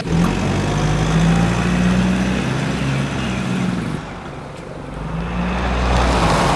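Truck engine sound running at a steady low pitch. It falls away about two thirds of the way in, then swells again near the end.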